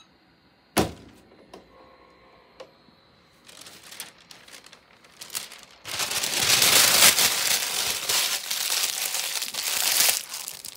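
A single sharp knock about a second in, then paper rustling and crinkling that grows loud over the last few seconds: parchment paper being handled and crumpled after a heat press.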